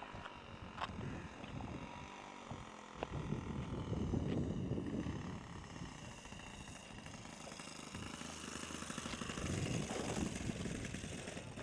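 The MBM 32 cc four-stroke petrol engine of a quarter-scale model aeroplane runs steadily as the model comes in to land and rolls out on the grass. Its pitch shifts slightly partway through, and gusty low rumbling from wind on the microphone runs underneath.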